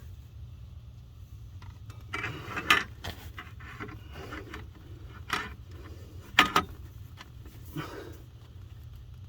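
Clutch pressure plate and disc being handled and fitted onto a BMW E39 flywheel by hand: a few sharp metal clacks and knocks with some scraping, the loudest about a third and two-thirds of the way through.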